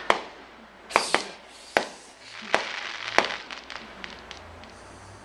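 Fireworks going off outside, heard through a window: about six sharp bangs over the first three seconds, with crackling from about two seconds in that fades toward the end.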